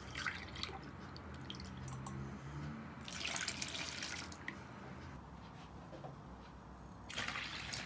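Liquid poured into a glass and then into a plastic mixing bowl: a faint trickle just after the start, a splash of warm milk into the bowl about three seconds in, and another pour into the bowl near the end.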